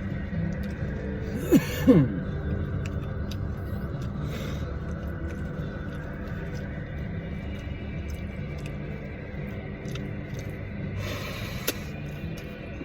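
Quiet radio music over a steady low rumble in a car cabin, with two short descending squeaks about a second and a half in and a brief rustle near the end.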